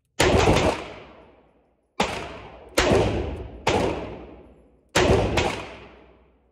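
Five shots from a Taurus Judge Public Defender Poly .410/.45 Colt revolver, fired in quick succession over about five seconds. Each report rings on and dies away slowly in the reverberation of an indoor range.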